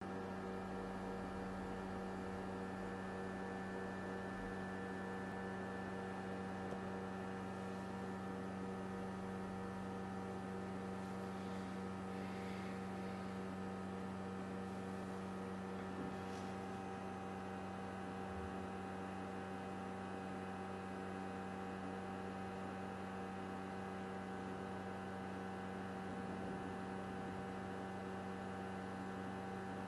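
A steady electrical hum made of several held tones, with the lowest the loudest. It is unchanging throughout, and nothing else stands out.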